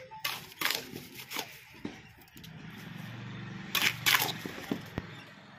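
Mason's steel trowel scraping and knocking on wet cement mortar and bricks, a handful of short sharp scrapes with the loudest pair near the end. A low steady hum comes up in the background about halfway through.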